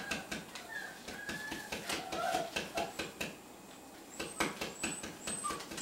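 A hand tapping on a concrete floor to call a puppy: a run of irregular light taps, with a few faint, short, high-pitched squeaks between them.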